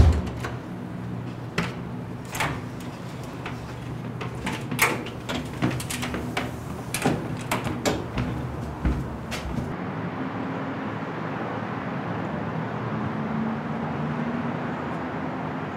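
Door sounds and footsteps: a thump at the start, then irregular clicks and knocks for about ten seconds, settling into a steady background hiss.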